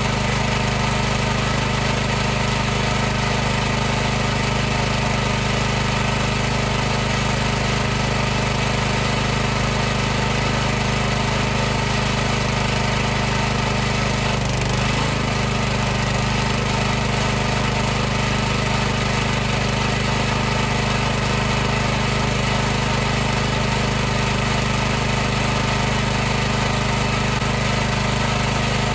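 High-pressure washer running continuously with a steady mechanical hum and hiss, holding one even pitch and level.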